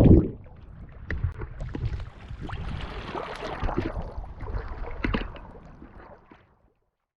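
Muffled water sloshing and rumbling with many short scattered clicks and crackles, loud at first and then fading out.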